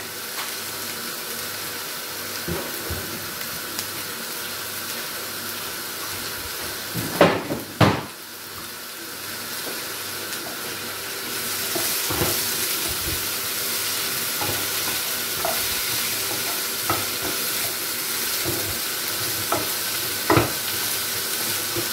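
Polish sausages and mushrooms sizzling steadily as they fry in oil in a frying pan, a little louder from about halfway through. A wooden spatula stirs and knocks against the pan now and then, with a couple of louder knocks about seven seconds in.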